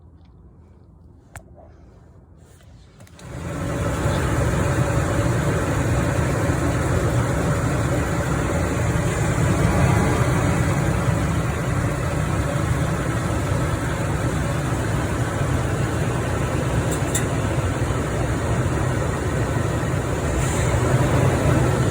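A vehicle's steady running and road noise comes in abruptly about three seconds in, after a quiet stretch with a single click.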